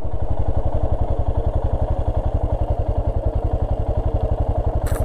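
Motorcycle engine running at a steady pace while riding a gravel track, its exhaust beat even and rapid. A brief hiss comes near the end.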